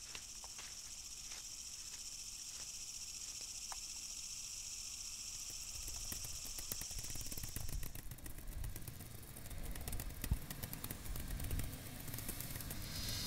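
A steady high hiss, of the sort an insect chorus makes, fades out about eight seconds in. A low rumble with scattered crackles and clicks then grows louder.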